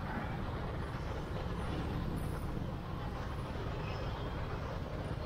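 Steady low rumble of a vehicle moving along a road, with wind and road noise and no distinct events.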